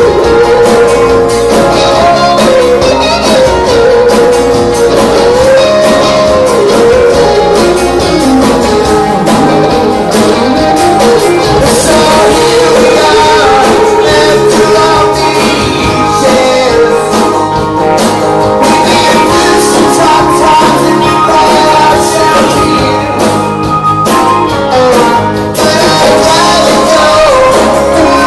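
Live rock band playing a song: electric guitars, electric bass and drums, with a man singing lead.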